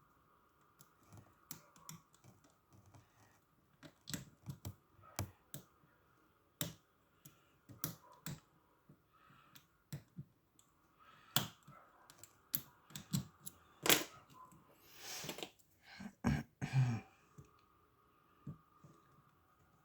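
Lock picking in an old Russian dual custody padlock: a short hook pick and tension wrench clicking irregularly against the pins in the keyway. About 15 seconds in there is a brief scraping rasp, followed by a few heavier knocks as the padlock is handled.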